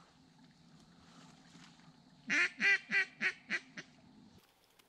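A run of six quick duck quacks about two seconds in, fading away after the second, like a hen mallard's descending call. A faint steady low hum sits underneath.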